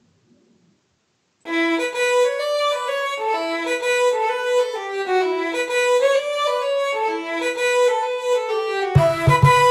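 Background music: after a second or so of silence, a lively fiddle tune starts suddenly, and a low, thumping beat joins it near the end.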